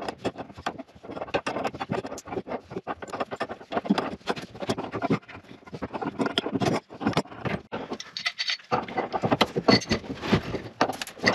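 Hand tools working loose the water supply line connections under a kitchen sink: a quick, irregular run of metal clicks, clinks and scrapes.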